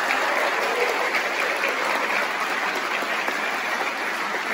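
Concert audience applauding: dense, steady clapping that eases off slightly toward the end.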